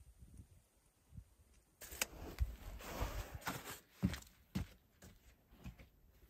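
Rustling and scraping with several dull thuds, starting about two seconds in and lasting about three seconds, then a few soft knocks.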